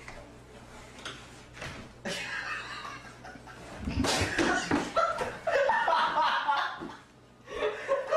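A person laughing, loudest from about halfway through, with faint taps before it.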